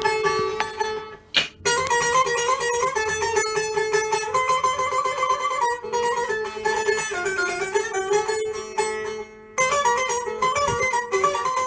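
Bağlama (Turkish long-necked saz) played solo in an uzun hava melody: quick plucked notes over a steady drone note, with two brief pauses, one just over a second in and one about nine seconds in.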